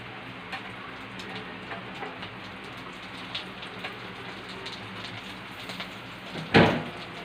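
Three pieces of tuyo (dried salted fish) frying in hot oil in a pan, with a steady sizzle and fine crackling pops. A single louder clatter comes about six and a half seconds in.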